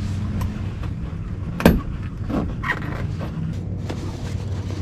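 A fabric shower curtain being fastened to a boat's bimini-top frame, with rustling handling and one sharp snap a little under two seconds in, over a steady low hum.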